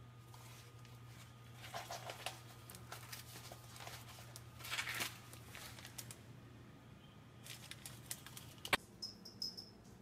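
A sheet of paper rustling and crinkling in a few short spells as a cat paws at it, over a low steady hum from an electric fan. A single sharp click comes near the end.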